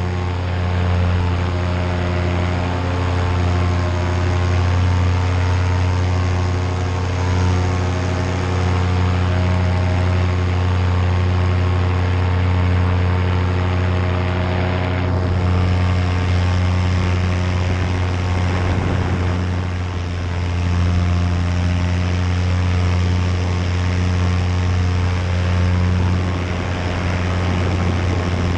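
Nitro 200 paramotor's single-cylinder two-stroke engine and propeller running at a steady throttle, a loud, even drone.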